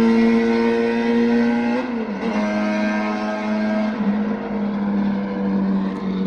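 Honda Jade 250's four-cylinder engine held at high revs through a 4-2-1 aftermarket exhaust, a loud steady high-pitched howl. The revs drop sharply about two seconds in, then climb back and hold, sagging slowly toward the end.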